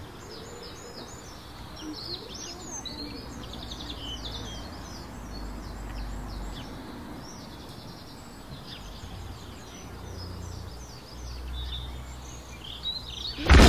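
Many small birds chirping and twittering over a low rumble. A sudden loud burst of sound breaks in at the very end.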